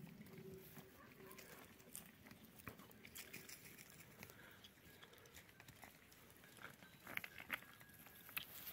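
Near silence with faint scattered clicks and patter of goats' hooves on a gravel dirt road, a small cluster of louder ticks near the end.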